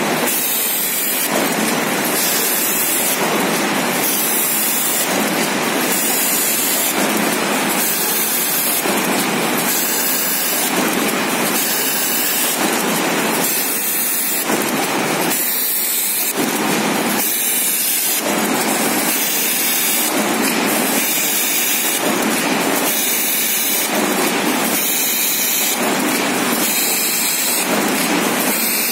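Automatic PP woven bag cutting and sewing machine running, a steady mechanical clatter that swells and eases in a regular cycle a little more than once a second as it works bag after bag.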